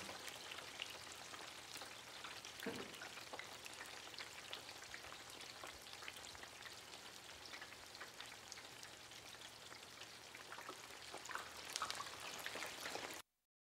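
Food frying in hot oil: a steady sizzle with many small crackling pops, cutting off abruptly near the end.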